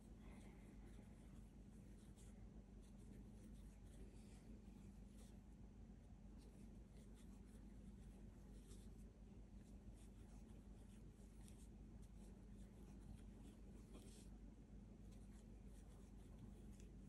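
Very faint, soft scratching and rustling of a metal crochet hook drawing acrylic yarn through stitches, many short strokes in quick irregular succession, over a low steady hum.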